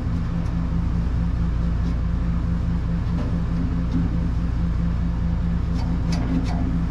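Steady low machine hum with several held pitches, unchanging in level, and a few faint light clicks near the end.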